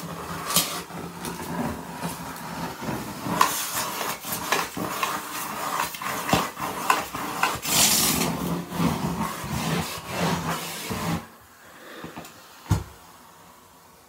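AirVac central vacuum running through a crevice tool, sucking up debris with a steady hiss and many quick clicks and rattles as bits hit the tool and hose. The suction cuts off about eleven seconds in, and a single knock follows shortly after.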